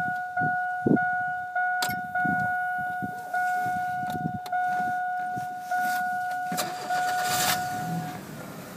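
1998 GMC Sonoma four-cylinder being started: a single-pitch dashboard warning chime dings over and over while the starter works. The engine catches about seven seconds in and settles to idle as the chime stops.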